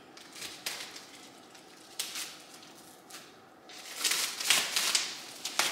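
Scattered light clicks and knocks of things being handled, then a louder rustling, scraping stretch from about four seconds in, as items and drawer organizers are moved about.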